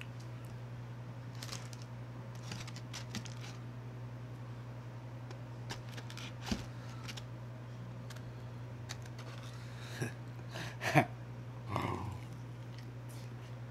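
Small clicks and rustles of a bone-in chicken wing being picked out of a takeout tray, then biting into the wing and wet mouth sounds near the end, the loudest part. A steady low hum runs underneath.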